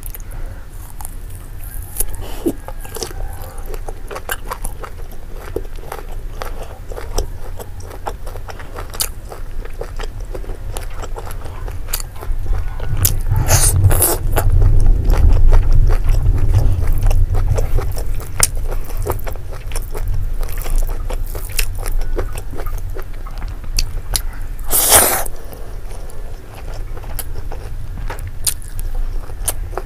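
Close-miked biting and chewing of fried pork, a steady run of wet mouth clicks and smacks. It grows heavier and more booming for a few seconds midway, with one sharper smack later on.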